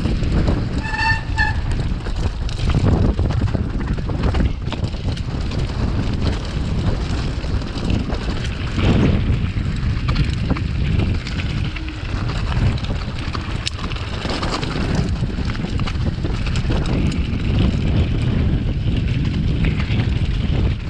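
Wind buffeting the microphone on a descending mountain bike, mixed with the tyres running over rocky dirt and the bike rattling and knocking on the rough trail. A short two-note tone sounds about a second in.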